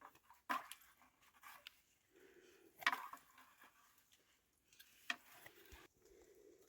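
A dog making soft breathing sounds, with three sharp knocks about half a second, three seconds and five seconds in.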